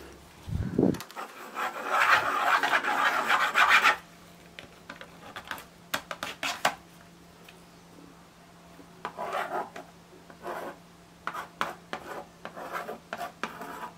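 Stylus scratching and rasping on a plastic magnetic drawing board: a long dense rasp about a second in, then shorter scratchy strokes.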